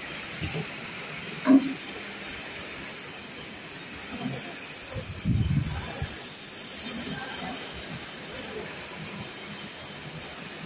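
Automatic engine-oil bottle filling and capping line running: a steady mechanical hiss with scattered knocks, a sharp loud knock about a second and a half in and a cluster of heavier thuds around five seconds in.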